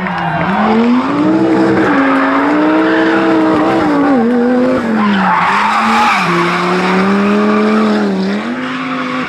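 Rally car engine at high revs, its pitch climbing and dropping several times through gear changes and lifts off the throttle. Tyres skid and scrub loudly about halfway through.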